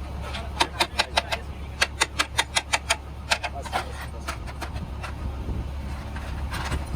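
A series of sharp taps or knocks, several a second in uneven bursts, over a low steady hum.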